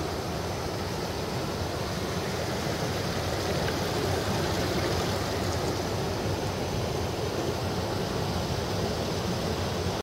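Water of a shallow cascade rushing steadily over a series of low limestone ledges.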